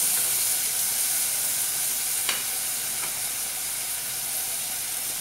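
Chopped garlic sizzling in hot oil in a small saucepan as it is stirred with a silicone spatula, being lightly sautéed. Two light knocks a little over two and three seconds in.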